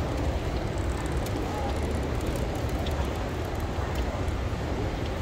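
Steady low rumble of a busy indoor public hall, with faint distant voices.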